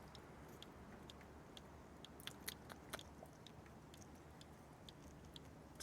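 Near silence over a steady low hum, with faint irregular clicks and ticks. A few are slightly louder about two to three seconds in.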